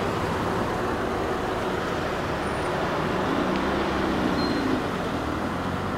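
Steady road traffic noise at a city intersection, with a vehicle's engine note rising and falling from about three seconds in.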